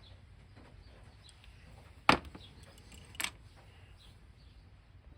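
Two sharp knocks of small hard objects, about a second apart, the first much louder, as paint pots or tools are handled on a work surface.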